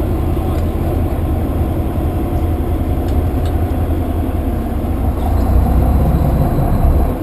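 Fishing boat's engine running steadily, growing a little louder about five seconds in.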